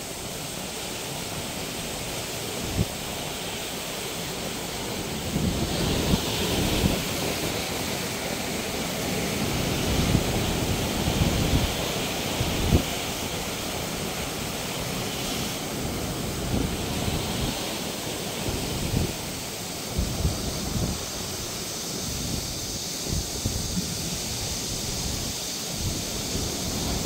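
Sea surf breaking and washing over shoreline rocks, its hiss swelling and fading every few seconds. Gusty wind buffets the microphone with irregular low thumps.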